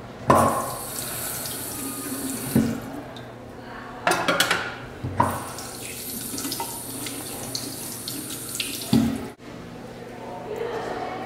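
Water running from a bathroom tap into a sink basin, splashing as a knife is rinsed under it, with a few short knocks along the way. The water stops about nine seconds in.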